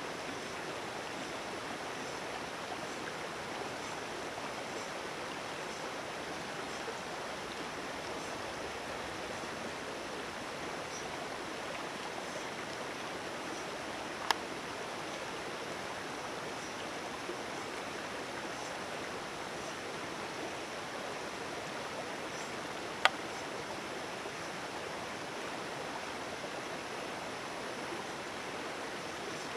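Creek water rushing steadily, with a sharp click about halfway through and another about three-quarters of the way in.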